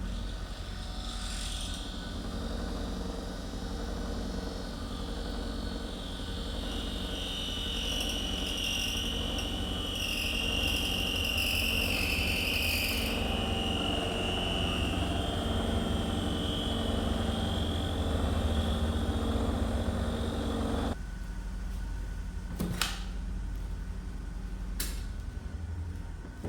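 Antique lathe running, with a high screech of a cutting tool on metal that swells and fades; the cutting noise stops about 21 seconds in, leaving a low hum and two sharp clicks.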